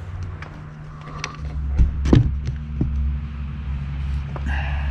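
Handling clicks and knocks from a pleated RV window blind and its metal head and bottom rails being worked on a table, a few sharp taps spread over the first three seconds. Over them a steady low hum sets in about a second and a half in and grows.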